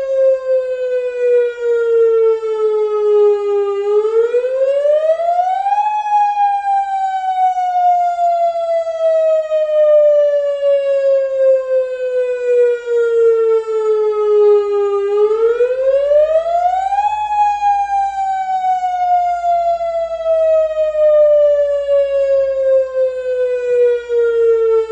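Tsunami warning siren wailing as one steady, loud tone. The pitch falls slowly for about ten seconds, then climbs quickly for about two seconds. The climb comes twice: about four seconds in and again about fifteen seconds in.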